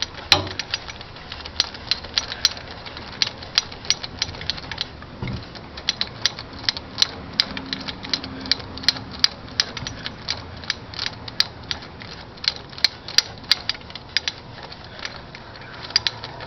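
Hand ratchet clicking in quick, uneven runs of strokes, driving the gear puller's bolts into an engine's harmonic balancer.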